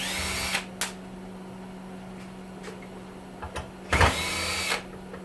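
Cordless drill driving out screws from a radiator heater's casing: two short spins, one right at the start and another about four seconds in, each with a quick rising whine as the motor spins up.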